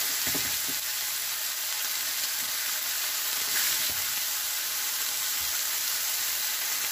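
New York strip loin steaks sizzling steadily in hot oil in a frying pan.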